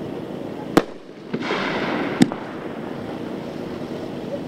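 2-inch consumer super finale cake firing: two sharp bangs about a second and a half apart, with a third at the very end, over a continuous rushing noise.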